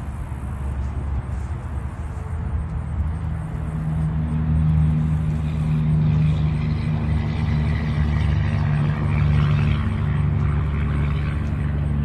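A motor's steady low hum, growing louder about four seconds in and then holding steady.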